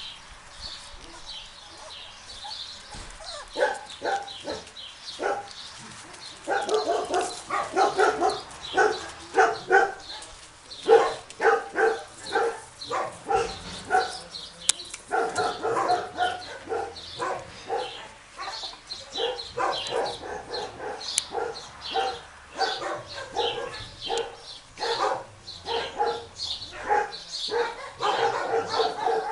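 Several small animals giving short, high-pitched yips and squeals in quick succession, many overlapping. The calls are sparse and fainter for the first six seconds, then come thick and louder.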